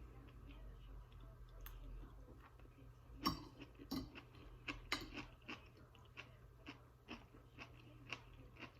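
A person chewing food, with a few sharper clicks about three to five seconds in and soft clicks about twice a second after that.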